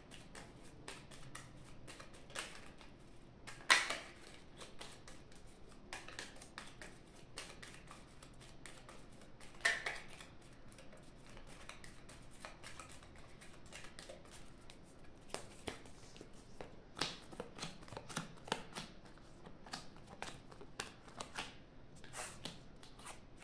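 A deck of playing cards shuffled by hand, a stream of light papery clicks, with two louder snaps about four and ten seconds in. Over the last seconds the clicks come thicker as cards are laid down one by one on a soft table mat.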